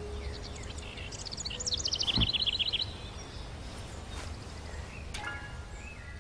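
A songbird singing a run of quick high chirps that builds into a fast trill about two seconds in, with a few more high notes near the end, over a steady low rumble of background noise.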